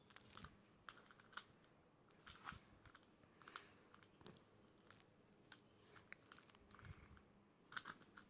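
Faint, irregular plastic clicks and taps of a Rubik's Cube being handled and turned.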